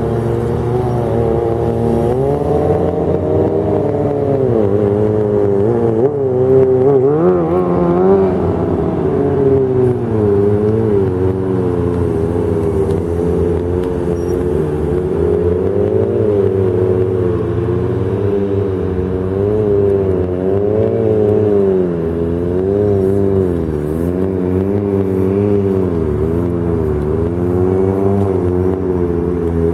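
Motorcycle engine revving up and down over and over, the throttle worked continuously to hold the bike up on one wheel during stunt riding.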